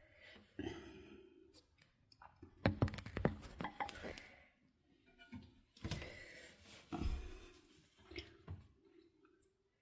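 Irregular clicks, knocks and thunks of hands working on toilet fill valve parts, in clusters with short pauses between.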